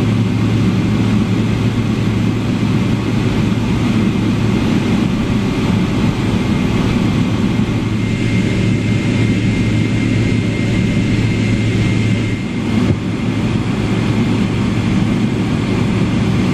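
Boeing 777-300ER cabin noise while taxiing, its GE90 jet engines at idle: a steady hum and rush with a faint high whine. The low hum drops away about twelve seconds in.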